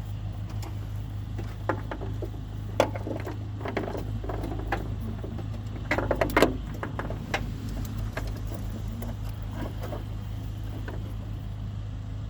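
Small plastic clicks, rattles and knocks of hands working a bulb and socket into the back of a truck's front marker light, with a cluster of them about six seconds in, over a steady low hum.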